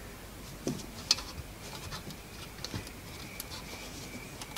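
Scattered small clicks and knocks of speaker wire being handled and pushed into an amplifier's spring-clip speaker terminals, the sharpest click about a second in.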